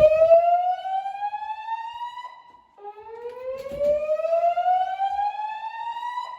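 Gentex fire alarm speakers on a Notifier DVC voice-evacuation system sounding the slow whoop evacuation tone: a rising sweep of about three seconds, heard twice.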